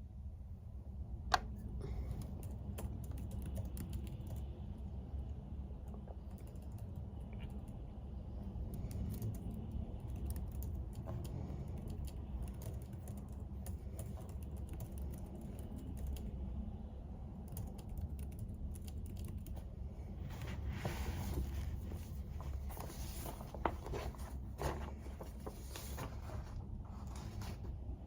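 Typing on a computer keyboard: scattered key clicks at first, then a denser run of typing from about two-thirds of the way through, over a low steady hum.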